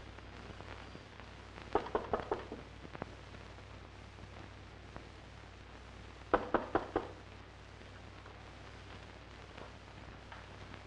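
Knuckles rapping on a wooden door: four quick knocks about two seconds in and four more about four seconds later, over the steady hum and hiss of an old film soundtrack.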